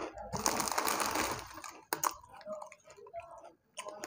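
Close-up crunching and chewing of Kurkure, a crisp corn snack: a dense run of crunching early on, then scattered sharp crunches as the chewing slows.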